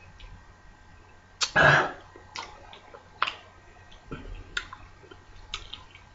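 A man eating French fries, with mouth sounds: a short, loud throat-clearing or exhale about a second and a half in, then scattered soft clicks and smacks of chewing.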